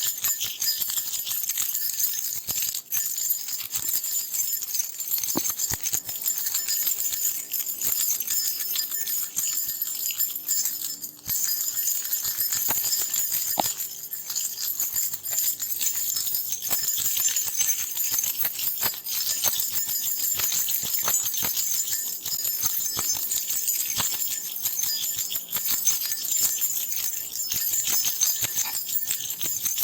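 A bunch of metal keys shaken and jingled continuously, a dense run of bright metallic clinks with a short lull about eleven seconds in.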